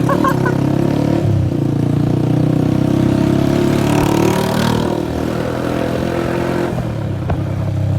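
Honda CG 125's single-cylinder four-stroke engine running loud through a burst silencer, the exhaust note rising over the first few seconds, easing off about five seconds in and picking up again near the end.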